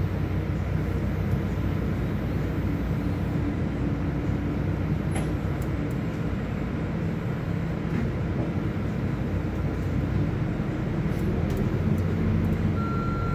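City bus heard from inside the cabin, its engine running with a steady low hum and rumble. A steady high beep starts near the end.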